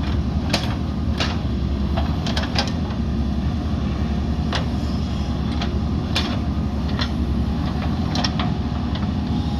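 JCB backhoe loader's diesel engine running steadily, with irregular sharp clicks and knocks over the rumble.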